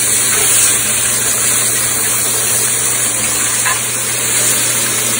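Ribeye steaks searing in a very hot cast iron pan: a steady, loud sizzle as the meat browns.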